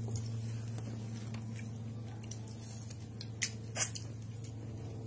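A person biting and chewing ripe apple mango flesh: soft wet squishing and smacking mouth sounds, with two louder smacks close together about three and a half seconds in. A steady low hum runs underneath.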